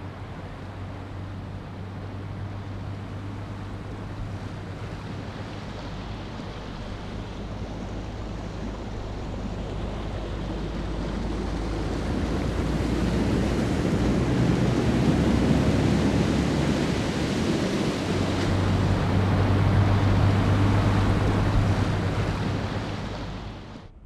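Mercedes G-Class SUV wading through a shallow water crossing: a steady low engine hum under the rush and splash of water thrown off its wheels. The splashing grows louder as it comes closer and peaks twice, about halfway through and again a few seconds before the end.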